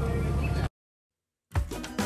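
Roadside ambience with a low steady rumble of traffic cuts off abruptly under a second in, leaving a moment of dead silence. Then edited-in music with a steady beat starts about a second and a half in.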